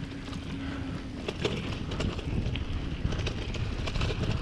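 Mountain bike rolling along a dirt trail: a steady tyre and wind rumble on the microphone, with frequent small clicks and rattles as the bike goes over bumps.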